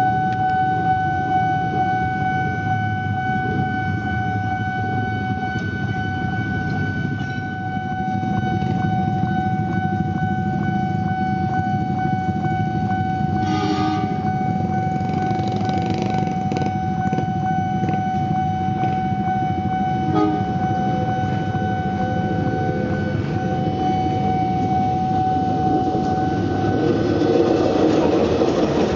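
Railway level-crossing warning alarm sounding a steady high tone without a break, over the running of a KAI CC201 diesel-electric locomotive as it approaches and passes. The locomotive's engine rumble grows louder near the end.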